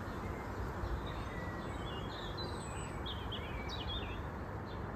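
Outdoor ambience of small birds chirping and warbling over a steady background rush of noise, with the bird calls busiest in the middle.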